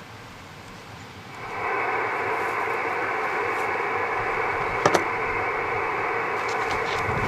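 Radio receiver hiss from the 10 GHz microwave station's speaker, coming up suddenly about a second in and holding steady: the open receiver listening for a reply to a CQ call. A short click near the middle.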